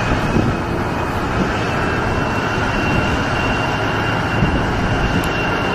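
A steady, loud rushing noise with a faint high whine held above it.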